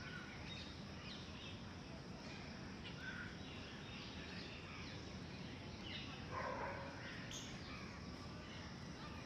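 Outdoor ambience: a steady hiss with scattered short, faint bird chirps, and one louder bird call about six and a half seconds in.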